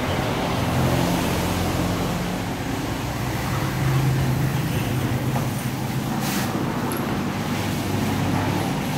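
Steady low mechanical drone with a wavering hum, like a running engine or traffic, and a brief faint click about six seconds in.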